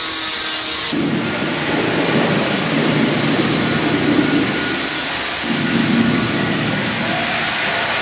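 Steel notched trowel scraping and combing wet cement-based tile adhesive across a wall in long, rough strokes, with a short break a little past halfway.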